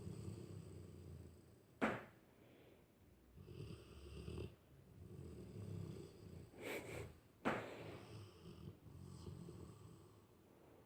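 A sleeping dog snoring: about four low, rasping snores a couple of seconds apart. Two sharp clicks, about two seconds in and near the middle, are the loudest sounds.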